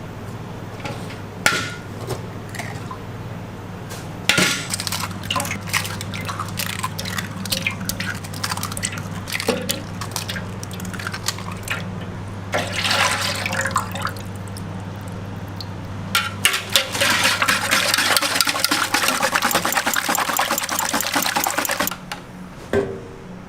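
Kitchen work sounds: scattered clinks and knocks of utensils and pans over a steady low hum, with a stretch of dense hissing about two-thirds of the way in that stops abruptly near the end.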